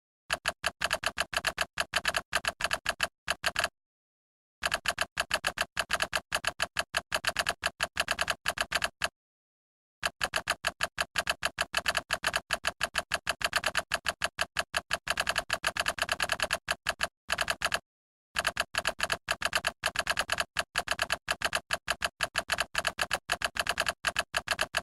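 Edited-in typing sound effect: quick, even ticks several times a second, in four runs broken by short dead-silent gaps.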